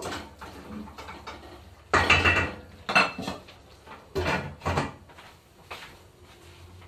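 Cookware clatter: a wooden spoon knocking in a steel pot of stewing green beans, the spoon set down on a ceramic bowl, and the glass lid set back on the pot. A series of separate knocks and clinks, the loudest and most ringing about two seconds in.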